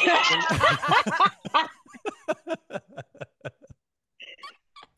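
Several people laughing together: a loud burst of overlapping laughter and exclamation at the start, then trailing off into quick rhythmic chuckles that fade out after about three and a half seconds.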